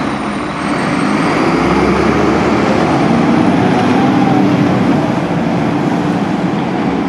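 Diesel engine of a refuse lorry pulling away from a standstill close by and driving off, getting louder about half a second in as it moves off, with road traffic following behind.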